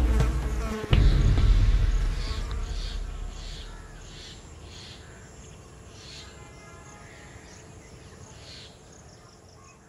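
A deep low boom about a second in that fades away over a few seconds, then insects buzzing and chirping, growing fainter toward the end.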